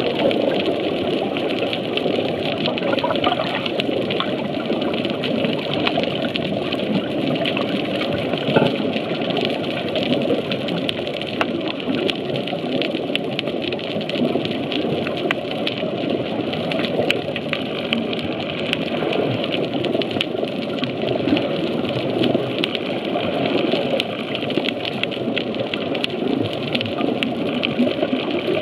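Underwater ambience as picked up by a camera in its waterproof housing: a steady, dense rushing hiss with many scattered sharp clicks and crackles.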